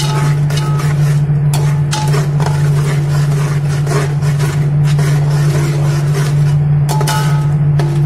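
Onion paste, whole spices and ginger-garlic paste frying in oil in a pan (bhunao for chole masala), stirred with a spoon that clicks and scrapes against the pan. A steady low hum runs underneath.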